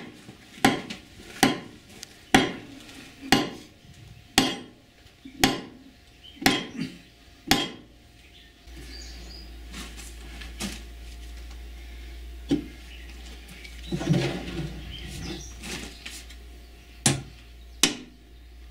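Hand hammer striking the iron fittings of a 1917 Farquhar stationary steam engine, sharp metallic blows about once a second to knock loose a rusted-on part. After about eight seconds the blows stop, with a low hum and a few scattered knocks and scraping, then the hammering resumes near the end.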